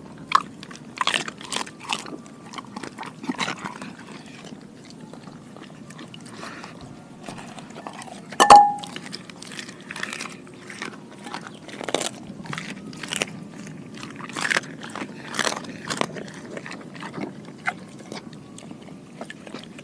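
Doberman chewing whole raw mackerel pike and sardines from a glass bowl: irregular wet bites and crunches of fish and bone. About eight and a half seconds in comes one loud ringing clink against the glass bowl, and near the end the dog licks the bowl.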